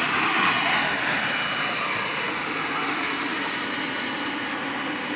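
Kärcher BD 530 Bat battery walk-behind scrubber-dryer running, its brush and suction motors making a steady whir that slowly grows fainter.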